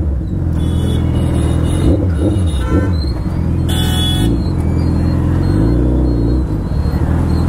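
A vehicle's engine runs steadily on the road, with a few short horn toots in the first half, the longest and loudest about four seconds in.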